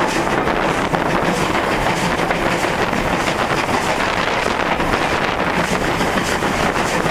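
Ivatt steam locomotive running, heard from beside its cab with steady wind noise buffeting the microphone.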